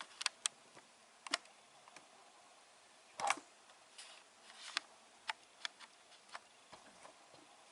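Scattered light plastic clicks and knocks, about a dozen, the loudest a short clatter about three seconds in: parts of a Miele washing machine's TwinDos detergent dispenser being handled.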